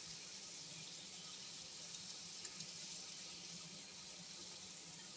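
Faint, steady sizzling from a frying pan of melted butter as sauerkraut warms in it, with a couple of light ticks in the middle.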